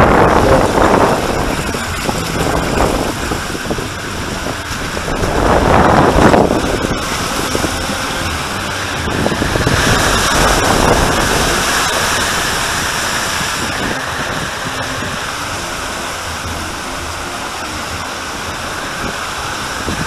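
Water rushing along a water-slide flume and enclosed tube as a rider slides down, with wind on the microphone. It is a steady rushing hiss that swells louder a couple of times.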